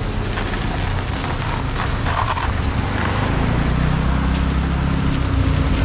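Roadside traffic ambience: a steady low rumble, with a vehicle engine hum growing stronger from about halfway through.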